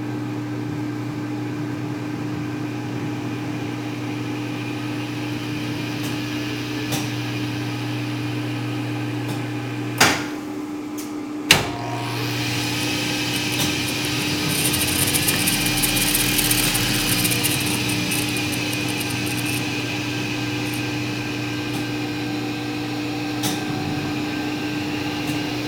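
Hardinge HLV-BK lathe running, over the steady hum of the phase converter that powers it. Two sharp clicks come near the middle, and the running then grows somewhat louder for several seconds before settling.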